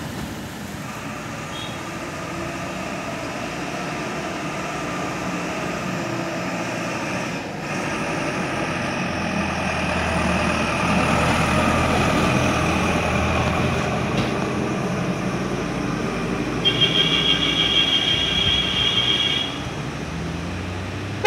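Road traffic on a hairpin bend: car engines and a heavy lorry's diesel engine passing, growing louder through the middle as the lorry comes round. For about three seconds near the end, a shrill high-pitched squeal sounds over the traffic.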